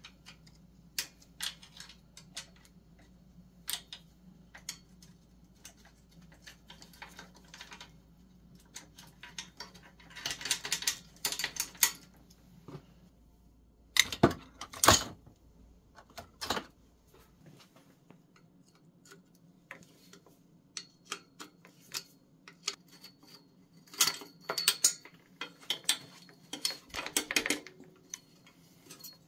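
Wrenches clicking and clinking against the rusty steel parts of an old bicycle as the rear derailleur and crank are unbolted. About halfway through there is a loud clatter as a rusty chain drops into a plastic barrel of scrap parts.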